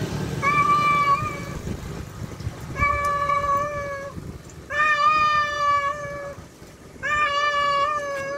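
Male domestic cat calling to a female with four long, drawn-out meows, each held at a steady pitch for about a second or more, with short pauses between them.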